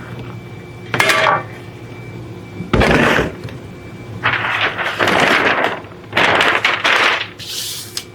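Handling noises at a workbench: a series of separate rustles and clatters, about five in all, with a heavier knock about three seconds in.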